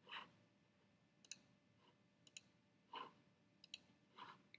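Near silence broken by three faint, sharp double clicks of a computer mouse button, pressed and released, about a second apart, with a few softer, duller knocks between them.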